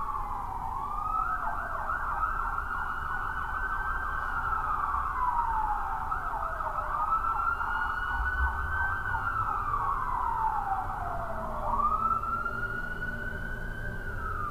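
Emergency vehicle siren wailing: a slow up-and-down wail that rises quickly, holds a high pitch for a few seconds, then slides down, about three times, over low street rumble.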